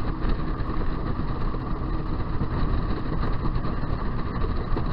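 A fishing boat's motor running steadily under way, with a constant rushing noise.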